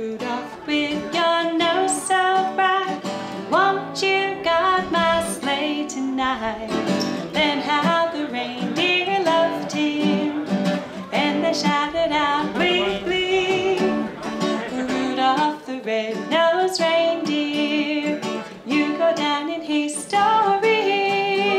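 Acoustic guitar music with a steady strum, and a woman singing in places.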